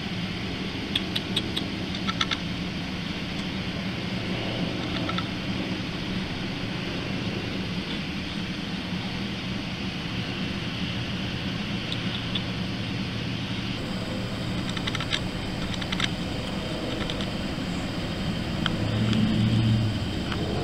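A steady low hum, with scattered faint clicks from cats eating out of food dishes; the hum swells briefly near the end.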